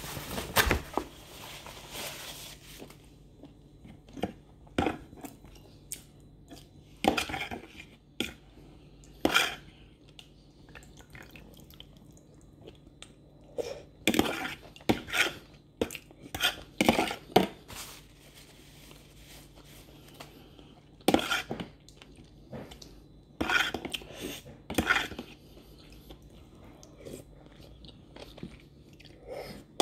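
Someone eating from a plastic tub with a metal spoon: the spoon clinks and scrapes against the tub in irregular clusters, with slurping and chewing between.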